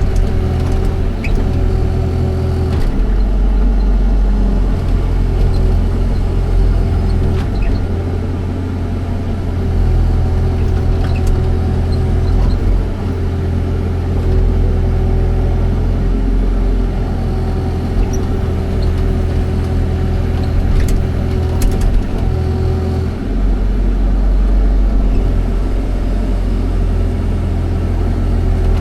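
Excavator's diesel engine running steadily while the machine works. Its low note shifts a few times as the engine load changes, with a few faint ticks over it.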